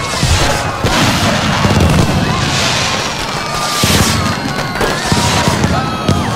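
Fireworks display going off: a dense, continuous run of bangs and booms.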